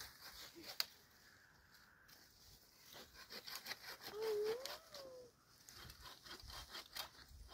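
A single short animal call about four seconds in, held and then gliding up and back down in pitch, over light scattered clicks and rustling.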